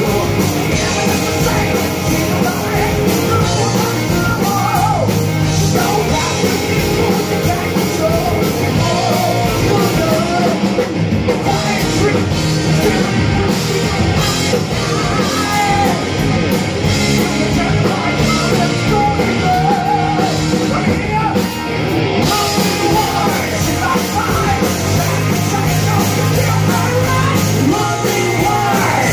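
Live hard rock band playing: a male singer singing and shouting over electric guitar, bass guitar and a drum kit.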